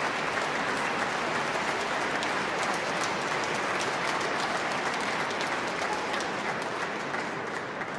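A large standing audience applauding, dense and steady, beginning to die down near the end.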